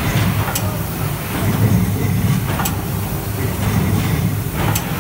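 1000-ton mechanical hot forging press running, with a steady low hum from its drive and flywheel. A sharp metallic click sounds about every two seconds, three times in all.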